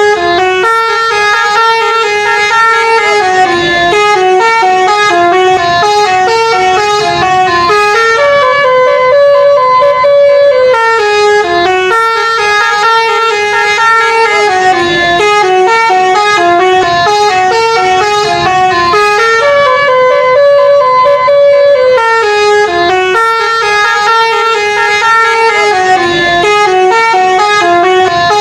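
Telolet bus horn playing its tune: a loud run of stepped musical horn notes, repeated over and over without a break.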